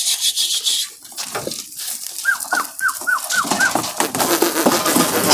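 A pen of young Sojat goats shuffling and moving about, with scattered clicks and rustling. About two seconds in comes a quick run of six short, high, falling calls.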